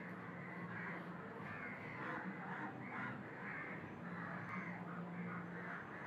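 A crowd of crows cawing over and over, two or three harsh calls a second, over a low steady hum.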